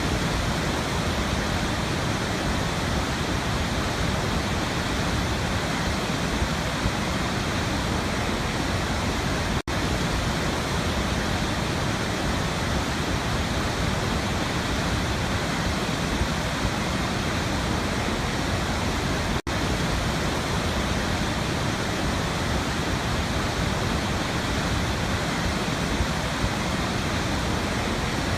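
Waterfall rushing in a steady, even roar of falling water, with two split-second dropouts in the sound.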